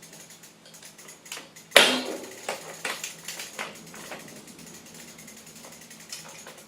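Socket ratchet clicking in short strokes as it tightens a bicycle crank bolt onto a square-taper bottom bracket, with one louder clack about two seconds in. The clicks thin out after about four seconds as the bolt comes up tight.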